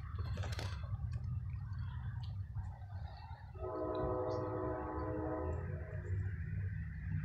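Locomotive air horn sounding one chord blast of about two seconds, a little past the middle, over a steady low rumble.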